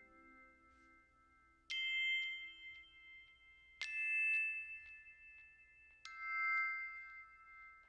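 Background music of struck chime or glockenspiel-like notes: three ringing strikes about two seconds apart, each dying away slowly.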